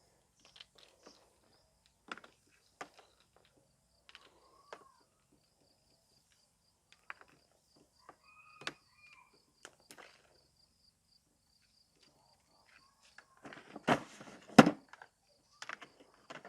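Scattered light clicks and knocks of plastic parts of a Karcher K7 pressure washer being handled and fitted, with a cluster of louder knocks near the end.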